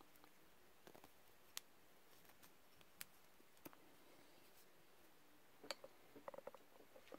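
Near silence with faint, scattered clicks of bare wire being twisted around a rusty John Deere JD-50 implement wrench, then a quick run of small clicks about six seconds in.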